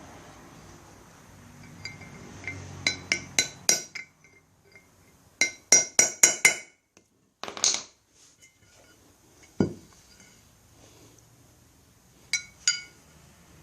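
Hammer tapping a steel punch into the worn bearing bore of a wheel hub, raising dimples in the metal so that the loose bearing will fit tight. The metal rings with each blow, which come in quick runs of four or five, with a short scrape and a duller knock in between.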